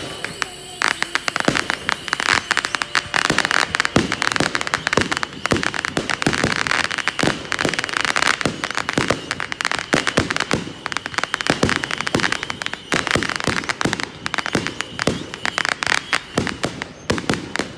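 Fireworks display: aerial shells bursting in a dense, unbroken run of bangs and crackles.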